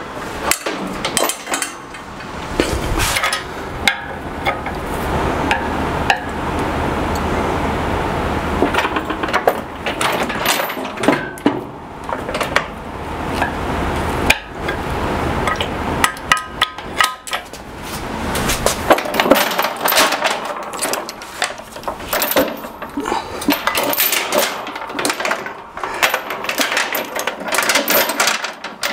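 Repeated metal clanks, knocks and chain clinks as a Harbor Freight 1-ton shop crane and its steel lifting chains, holding a heavy air compressor, are handled and its jack is pumped.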